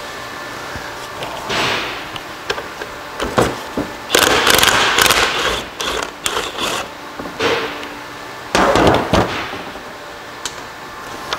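Cordless impact wrench rattling the shift lever's fastener off a transfer case, in several short bursts, the longest and loudest about four seconds in.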